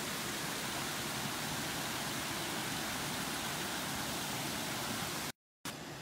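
Creek water spilling over low rock ledges in small cascades: a steady rushing hiss. It cuts out abruptly for a moment about five seconds in, then comes back quieter.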